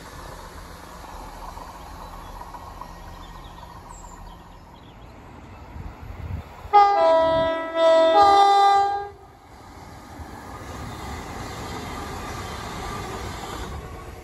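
Train horn sounding a two-tone call twice in quick succession, about seven seconds in: first a high note dropping to a low one, then low rising to high, each blast about a second long. A low rumble of the passing train lies under it.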